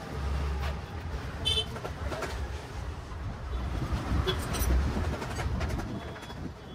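Light clinks and knocks of oily metal gearbox parts being handled, over a low rumble that swells twice.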